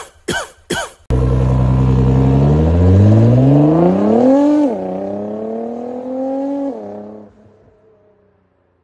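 Nissan GT-R R35's twin-turbo V6 accelerating hard away, its pitch climbing, then dropping at an upshift and climbing again before the throttle comes off and the sound fades into the distance.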